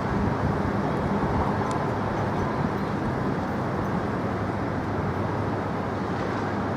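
Steady outdoor background noise, a low rumble with a faint low hum and no distinct events.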